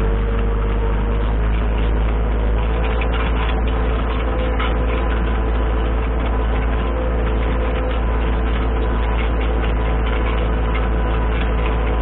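Kubota L3750 tractor's diesel engine running steadily while driving with a loaded front hay sweep, heard close up.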